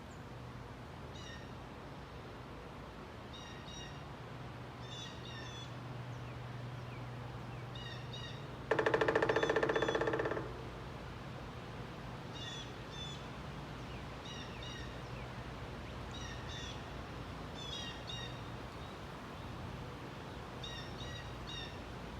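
A woodpecker drumming: one rapid roll of strikes lasting under two seconds, about nine seconds in, the loudest sound here. Short chirping bird calls repeat every second or two throughout, over a steady low hum.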